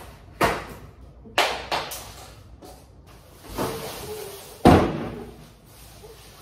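Cardboard box of a new Elenberg microwave being opened and the microwave lifted out: a few sharp thumps and knocks of cardboard and appliance being handled, the loudest about three-quarters of the way through.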